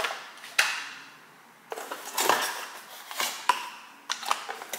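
Plastic yogurt cups being pulled out of a cardboard multipack tray and set down on a counter: a string of light knocks, clicks and scrapes at an uneven pace.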